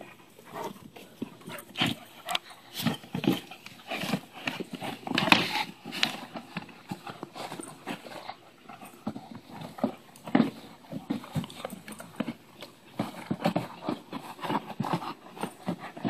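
Rottweiler chewing and tearing a cardboard box: irregular crunching, ripping and knocking of cardboard in the dog's jaws and under its paws, with short pauses.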